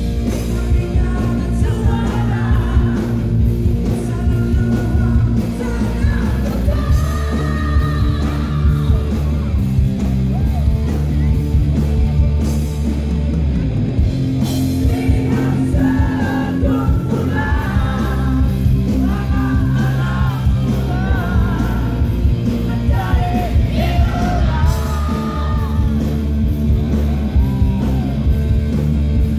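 Live rock band playing loud: a singer's voice over distorted electric guitar, bass guitar and drum kit.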